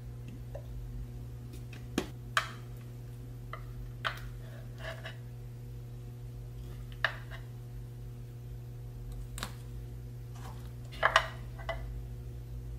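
Sharp clicks and light taps of wooden chopsticks and plastic food containers being handled, with a few soft rustles between, over a low steady hum. The loudest pair of knocks comes near the end.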